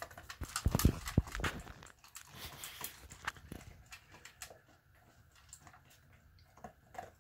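A dog eating dry kibble from a stainless steel bowl: quick crunches and clinks against the metal, densest and loudest in the first couple of seconds, then sparser and fainter.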